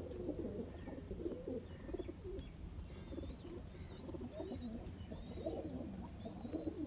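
Domestic pigeons cooing continuously, low wavering coos overlapping one another. From about three seconds in, faint short high chirps of small birds sound over them.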